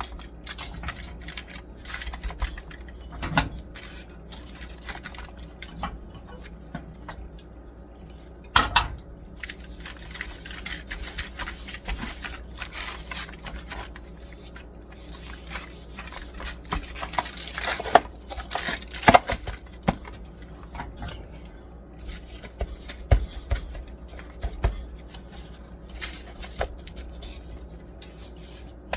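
Kitchen handling noise of dry rub being packed onto pork ribs in a pan: many small clicks, taps and rubbing sounds, with a few louder knocks of the pan or utensils about nine seconds in and twice around eighteen to nineteen seconds in.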